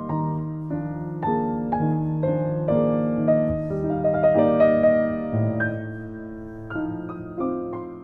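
Slow solo piano music: a gentle melody of struck notes over sustained chords, growing quieter over the last few seconds.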